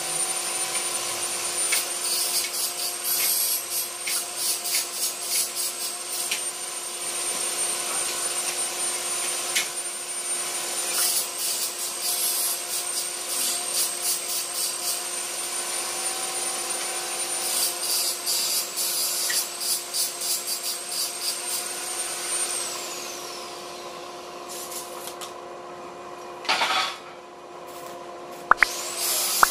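Steel-workshop power-tool noise: an electric motor with a high whine runs under rasping, scraping strokes, then winds down about two-thirds of the way through. Short bursts of arc-welding crackle come near the end.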